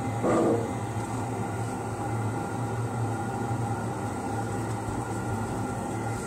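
Steady machine hum with a constant thin whine, as from a running motor or fan, and a short knock just after the start.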